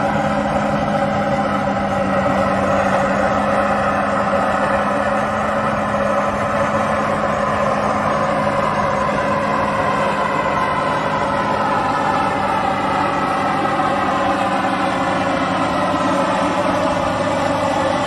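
Farm tractor engine running steadily under a constant load, with a held low hum and a slowly wavering higher drone.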